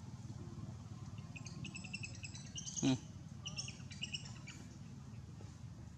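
A bird chirping in quick series of short high notes, with one short knock about three seconds in, over a steady low background hum.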